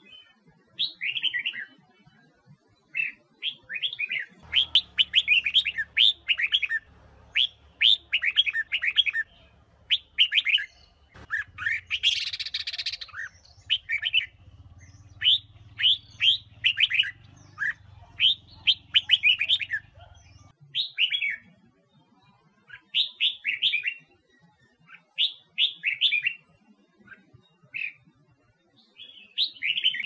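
Red-whiskered bulbul singing: quick bursts of short whistled notes, phrase after phrase with short pauses between. A faint low hum sits under the middle of the song, and a brief hiss comes about twelve seconds in.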